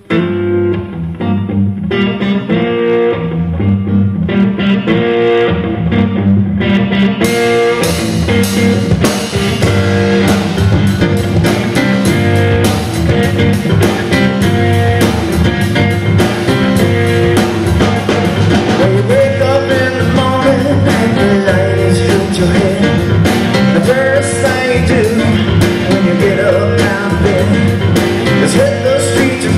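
Live blues-rock band playing an instrumental intro on electric guitar, bass, drums and keyboards. The sound opens out about seven seconds in, as the drums and cymbals come in fully.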